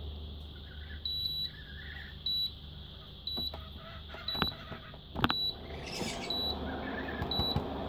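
Induction cooker beeping its fault alarm: short high-pitched beeps about once a second, over a steady low hum. Two sharp clicks come midway as plugs and leads are handled.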